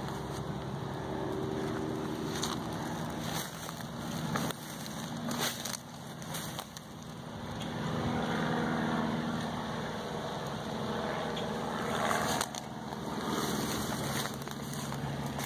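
A steady low mechanical hum runs under a noisy, rustling outdoor background, with a few short clicks or knocks along the way.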